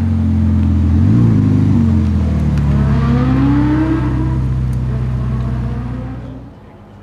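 Car engine revving briefly, then accelerating with a rising pitch before settling. It fades down near the end.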